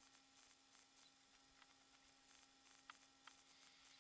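Near silence: a faint steady hum and hiss, with two faint ticks about three seconds in.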